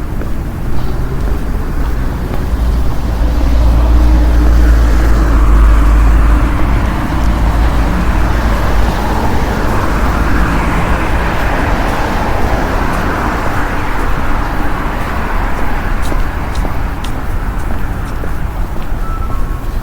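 Street traffic: cars going by in a continuous wash of road noise, with a heavier low rumble of a passing vehicle swelling a few seconds in and then easing off.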